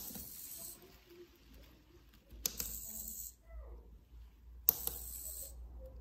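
Blue micro servo motor whirring briefly three times as its horn turns to a new angle on each pushbutton press; each move lasts under a second and starts with a sharp click.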